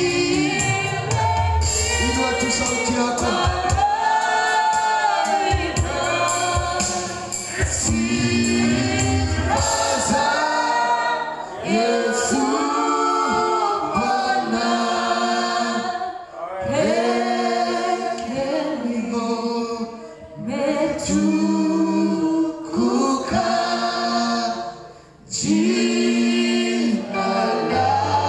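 Gospel worship song sung by a group of voices. A deep bass part plays under it at the start and end, while much of the middle is the voices with little low accompaniment.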